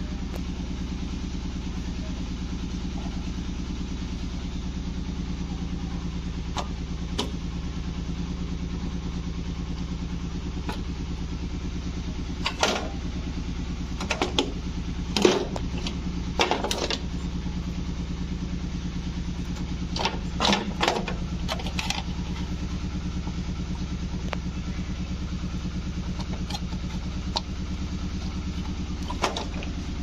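A steady low machine hum, with a handful of short knocks and clicks, most of them between about 12 and 21 seconds in, as the plastic-cased circuit board is handled.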